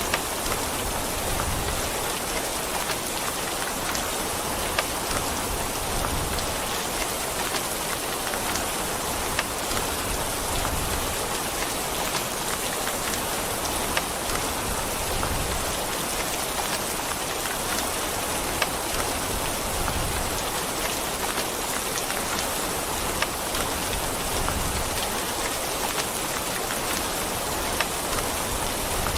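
Steady rain falling on a surface, with scattered individual drops ticking sharply over the even hiss.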